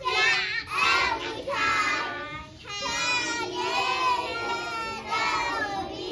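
A group of young children singing together on stage, in sung phrases with brief breaks between them.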